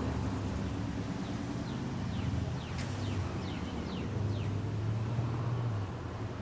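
A steady low engine hum, with a bird giving a run of about eight quick, falling whistled notes in the middle.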